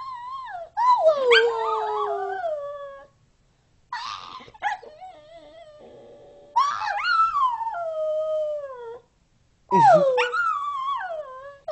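Shetland sheepdog howling: a long, sliding howl about a second in, a quieter wavering one around the middle, and two more long howls that fall in pitch near the middle and near the end.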